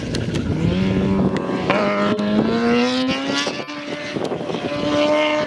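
Sport motorcycle engine accelerating hard, its pitch climbing in steps as it revs up through the gears, easing off briefly about three and a half seconds in and then rising again near the end.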